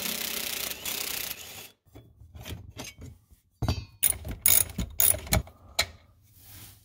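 Hand ratchet clicking in short, irregular runs as 13 mm bolts holding a bracket are loosened, after a steady rushing noise that stops about a second and a half in.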